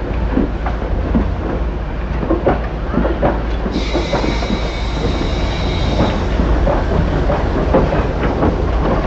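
ÖBB class 56 steam locomotive (56.3115) rolling slowly, its wheels and running gear knocking irregularly over the rails above a steady low rumble. A high hiss sets in about four seconds in and stops about two seconds later.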